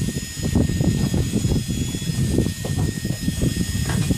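Wind buffeting the microphone in uneven gusts, with a thin steady machine whine running underneath.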